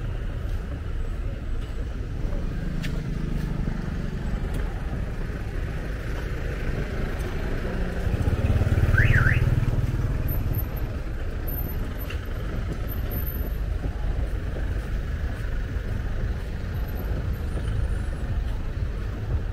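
Street traffic: a steady rumble of passing cars and motorbikes. About halfway through, one vehicle passes louder, with a brief high squeal.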